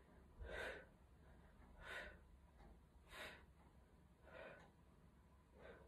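A man's faint, sharp breaths out, one with each crunch as he curls up: five short puffs about every 1.3 seconds.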